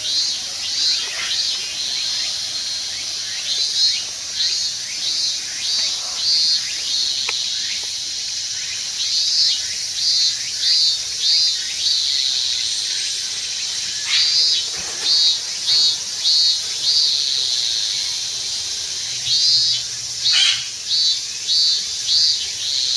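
Series of short, high chirps, four to six at a time about half a second apart, coming again and again over a steady high hiss.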